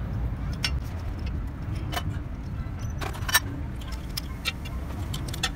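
Sharp metal clinks and taps from steel tools and parts being worked inside a truck gearbox casing, about one a second with the loudest about three seconds in, over a steady low rumble.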